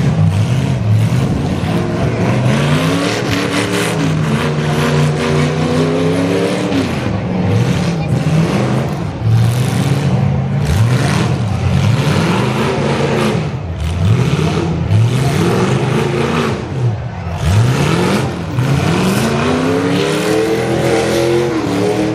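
Several demolition derby cars' engines revving hard over and over, their pitch repeatedly climbing and dropping as the drivers gun them in the mud, with a few sharp bangs between.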